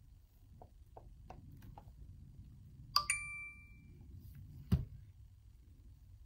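iPhone chime confirming an App Store download: one clear ding about three seconds in that rings out for about a second, after a few faint clicks. A short dull knock follows about a second and a half later.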